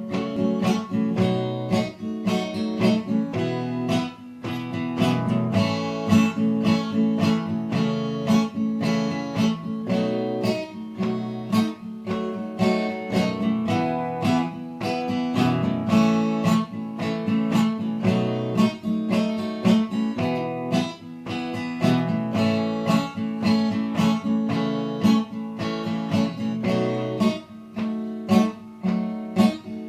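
Acoustic guitar strummed in a steady rhythm, chords ringing: an instrumental introduction with no singing yet.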